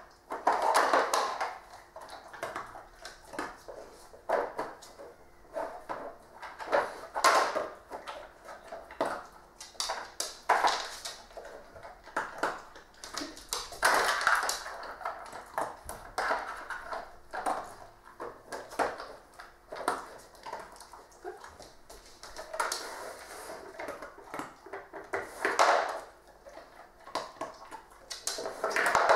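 Plastic dog puzzle toys being worked by a dog, first a Trixie Poker Box and then a Trixie Flip Board: irregular clacks, knocks and rattles as lids, drawers and flaps are pawed and nosed open and treat pieces shift.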